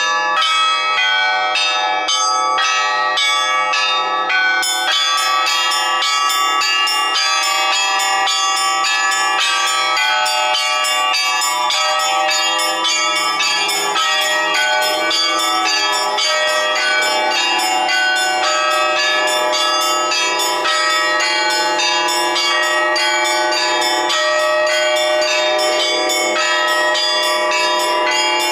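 Russian Orthodox church bells rung in a continuous peal, many bells of different pitch struck in quick succession.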